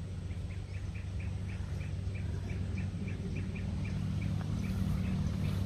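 A bird calling in a rapid run of short, evenly spaced notes, about five a second, that stops near the end. Underneath is a steady low engine-like hum that grows louder.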